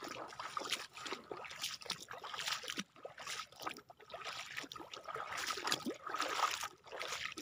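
Wading through shallow seawater: irregular splashing and sloshing of water around the feet.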